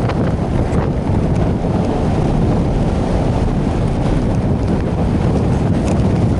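Loud, steady rush of wind buffeting the microphone.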